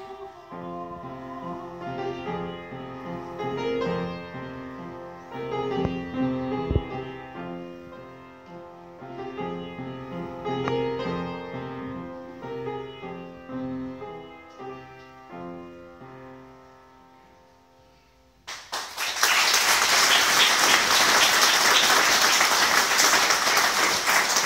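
Upright piano playing a slow closing passage alone, its notes dying away until it is nearly silent, with a single sharp knock about seven seconds in. About eighteen seconds in, audience applause breaks out and keeps going.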